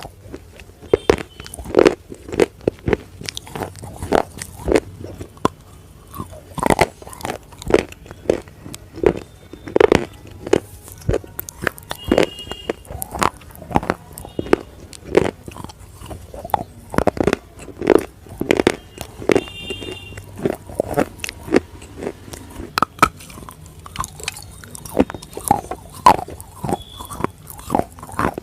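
A slate bar being bitten and chewed: a run of sharp, irregular crunches, about one or two a second, with softer grinding between them.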